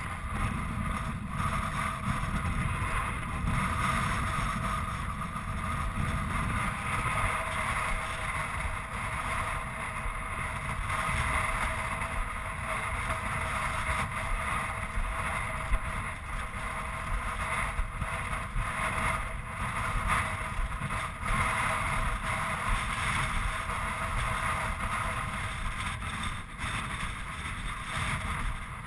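Wind buffeting the microphone of a helmet-mounted action camera: a steady, unbroken rush of noise, heaviest in the low end.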